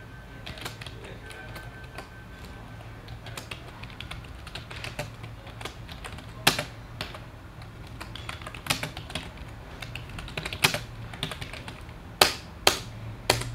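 Typing on a computer keyboard: a run of irregular key clicks, with a few sharper, louder keystrokes in the second half.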